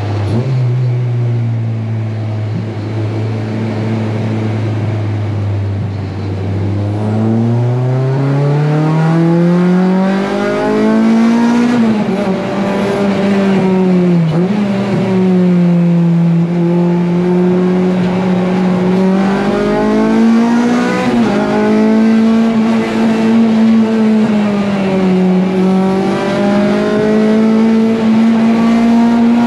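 Honda K24 four-cylinder engine heard from inside the car's stripped cabin. It holds a steady note for the first several seconds, then climbs in pitch as the car accelerates. It dips sharply about fourteen seconds in, then keeps running at high revs with a few brief sags.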